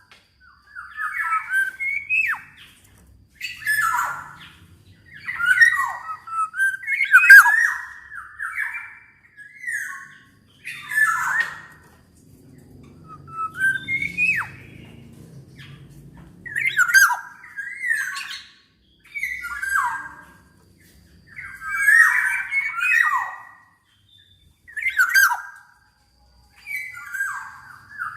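Black-naped oriole (kepodang emas) calling. It gives short phrases of harsh notes mixed with quick falling whistles, repeated every second or two with brief pauses between.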